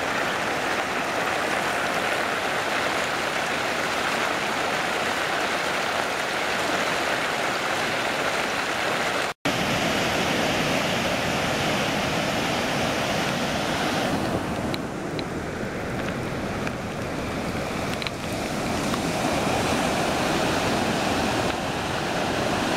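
Steady rushing of floodwater, cut off for an instant about nine seconds in; after the break, a swollen, muddy mountain stream pours over a concrete weir and rushes down its channel.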